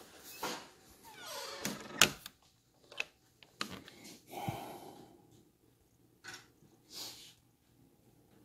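A series of sharp clicks and knocks with short rustles in between, the loudest a sharp click about two seconds in.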